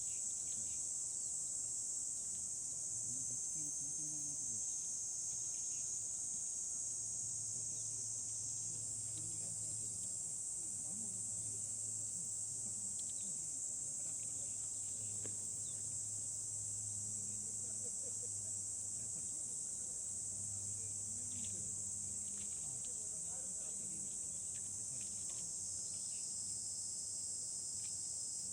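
Steady, high-pitched insect chorus of crickets or cicadas, unbroken throughout, with faint distant voices murmuring underneath.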